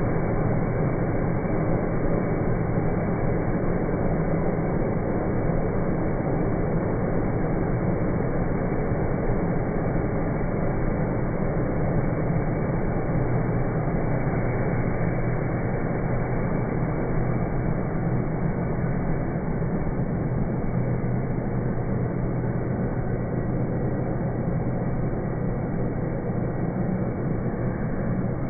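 Self-propelled crop sprayer's engine running steadily as the machine drives past spraying, a constant low hum that fades slightly near the end as it moves away.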